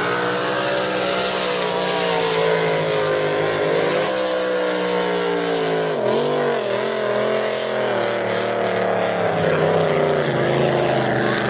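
Racing drag boat engines running hard at high revs. Their pitch sags and wobbles sharply about six seconds in, then steadies again.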